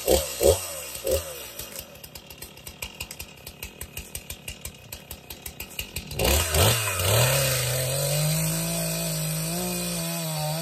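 Gasoline chainsaw blipped a few times, then idling with a fast even pulse. About six seconds in it goes to full throttle and runs steadily, its pitch sagging a little under load, as it cuts into the trunk of a dead pine to fell it.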